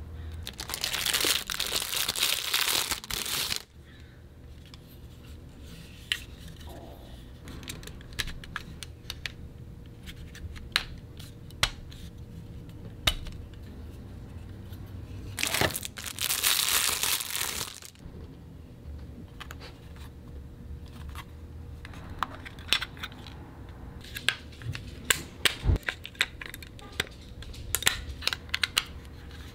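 Plastic packaging crinkling and rustling in two loud spells as the CD player's parts are unwrapped, with scattered sharp clicks and taps of hard plastic parts being handled in between, coming thick and fast near the end as the remote's batteries and cover are fitted.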